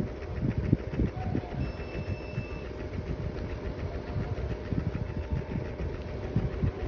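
Scooter running along the road at riding speed, its small motor humming steadily, with irregular wind buffeting on the microphone.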